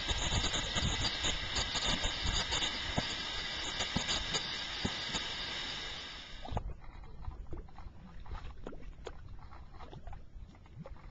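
Steady hiss of gas venting from a mud-volcano vent, with low rumbling under it. It cuts off suddenly about six and a half seconds in, leaving quieter, scattered soft pops of bubbling mud.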